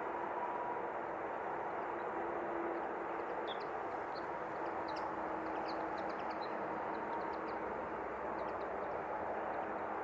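Steady outdoor background noise with a faint hum, and small birds giving short high chirps scattered through the middle.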